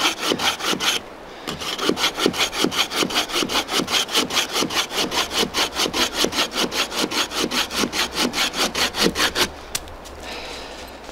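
Bahco Laplander folding saw cutting through a dead log with rapid, even rasping strokes, with a brief pause about a second in. The strokes stop about nine and a half seconds in as the cut goes through.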